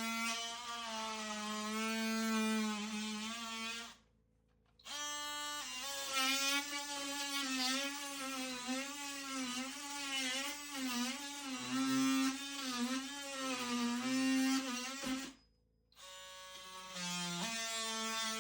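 Background music: a slow melody of long, sustained notes with vibrato, cutting out briefly twice.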